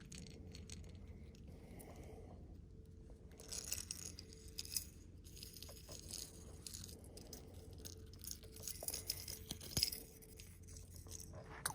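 Faint, scattered clicks and light metallic clinks of fishing tackle being handled in a boat, over a faint steady hum.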